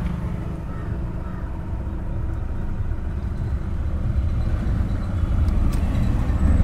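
Steady low rumble of a running vehicle engine, with a single faint click near the end.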